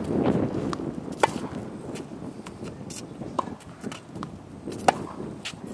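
Tennis ball struck by racket strings and bouncing on a hard court during a rally: sharp, short pops every second or two, the loudest about a second in and again near five seconds, with fainter ticks between.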